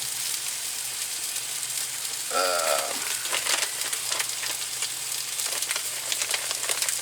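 Striped bass fillet frying in a pan, a steady sizzle with many small crackles. A short pitched squeak comes about two and a half seconds in.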